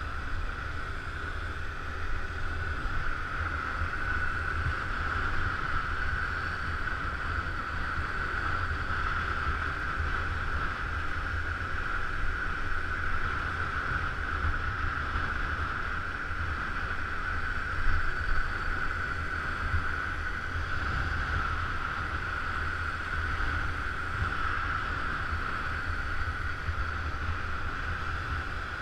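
Steady wind rush and running noise while riding a Honda motor scooter at speed, with wind buffeting the microphone as a low rumble.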